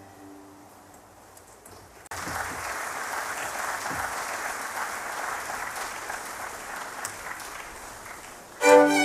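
Audience applauding for about six seconds after a string orchestra's held notes die away and a short hush follows. The strings strike up again right at the end.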